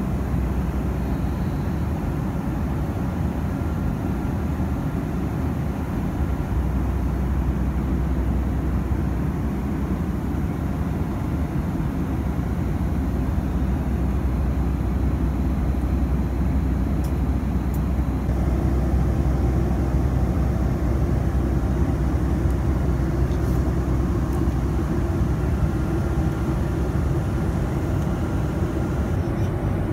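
Steady cabin noise of a Boeing 757-200 airliner, the even rumble of the jet engines heard from an economy seat, growing a little fuller about two-thirds of the way through.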